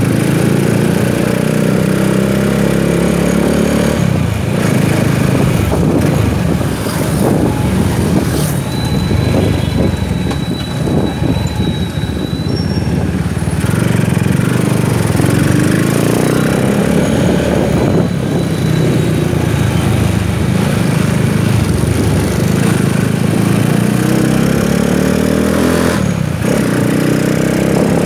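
Rusi 200 motorcycle engine running under way, its pitch rising and falling as the bike speeds up and slows in traffic, with wind and road noise. It eases off around the middle, then pulls away again.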